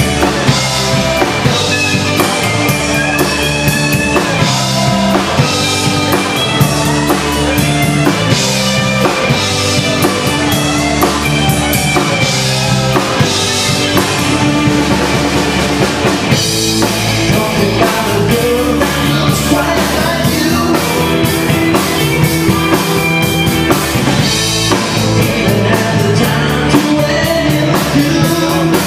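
Live rock band playing: electric guitars, bass guitar and a drum kit with a steady beat, amplified through stage speakers.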